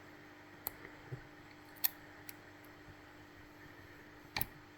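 A few light, sharp clicks of small metal lock parts and tools being handled, the loudest a double click near the end, over a faint steady hum.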